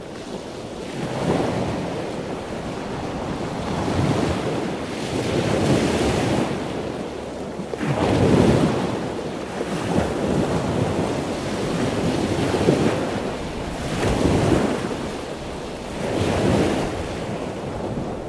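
Rushing water noise that swells and fades about every two seconds, like surf.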